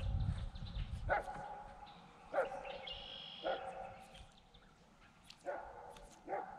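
A dog barking repeatedly, about five short barks spaced roughly a second apart.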